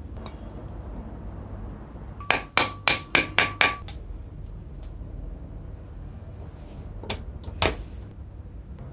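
A quick run of six sharp metal taps with a ringing tone, about four a second, then two more taps later on: metal parts knocked against the reciprocating saw's aluminium gear housing while a bearing and its snap ring are fitted.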